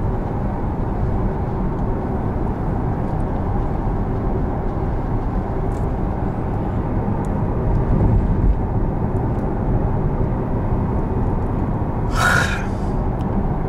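Porsche Taycan Turbo S on a wet road, heard from inside the cabin: a steady low tyre and road rumble with no engine note. A short hiss comes about twelve seconds in.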